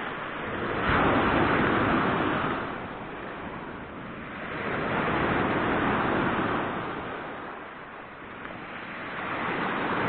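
Sea waves breaking and washing on the shore, swelling and fading three times, about four seconds apart.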